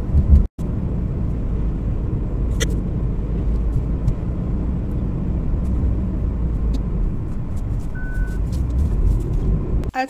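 Car interior noise while driving on a snow-covered road: a steady low rumble of engine and tyres. It cuts out for an instant about half a second in, and a short beep sounds about eight seconds in.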